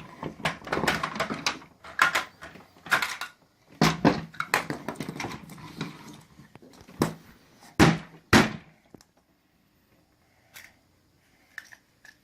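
Small plastic toys being handled and knocked together: a run of clicks and knocks, with two sharp knocks about eight seconds in, then mostly quiet with a few faint ticks.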